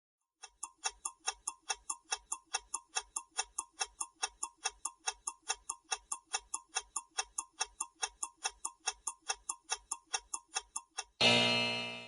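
Countdown-timer sound effect: a clock ticking evenly at about four ticks a second for some ten seconds. It ends in a loud, fading buzzer-like tone that marks time up.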